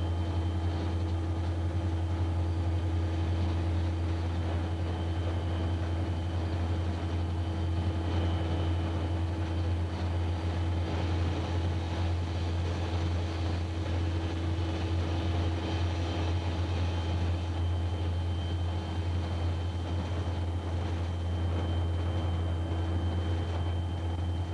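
Steady low drone of a diesel locomotive's engine heard from inside the cab as the train rolls along.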